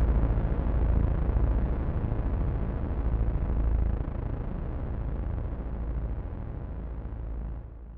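A deep rumbling drone from the trailer's score, stepping down in level about halfway through and fading out near the end.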